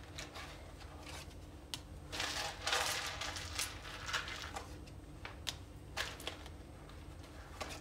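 Round cardboard fortune cards being shuffled and laid on a table: soft swishes of cards sliding, with light taps and clicks as they are handled and set down.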